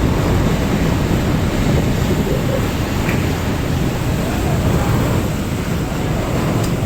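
Steady deep rumble of a passenger ferry's engines under way, mixed with a rushing wash of wind and water.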